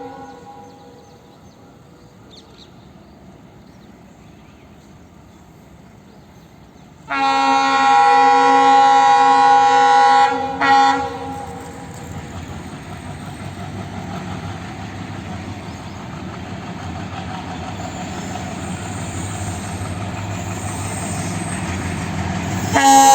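WDM3D diesel locomotive horn blowing one long loud blast about seven seconds in, then a short toot a moment later. After that the rumble of the train builds steadily as it slowly accelerates, and the horn sounds again at the very end.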